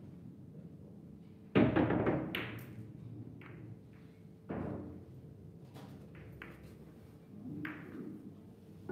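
Billiard balls on a boccette table knocking: one loud hard strike about a second and a half in, then a few lighter clicks and a second clear knock about four and a half seconds in.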